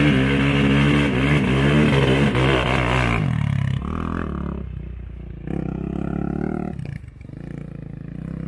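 Sport quad (ATV) engine revving hard for about three seconds, its pitch rising and falling, then three shorter, quieter bursts of throttle with short gaps between, as the rear wheels spin in mud.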